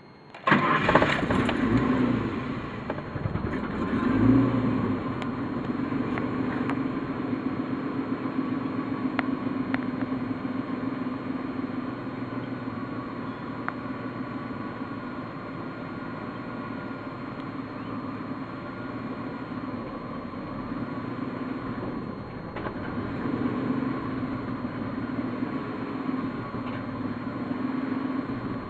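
Ford EL Fairmont Ghia engine starting about half a second in, rising briefly in revs about four seconds in, then idling roughly. The owner says it idles rough on both LPG and petrol and stalls often, and suspects a faulty engine computer or distributor.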